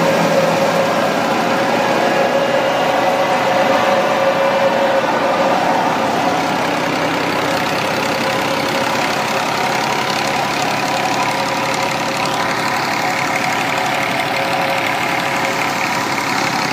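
Belt-driven wheat thresher running steadily, powered by an Al-Ghazi tractor's diesel engine, the engine and the thresher's drum and belts making one continuous mechanical din.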